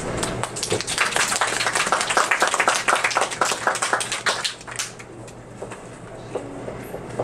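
A small group applauding, a dense patter of claps that thins out and stops about five seconds in, over a steady low room hum.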